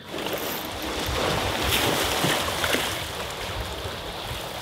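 Small waves washing against rocks at the water's edge, with wind rumbling on the microphone.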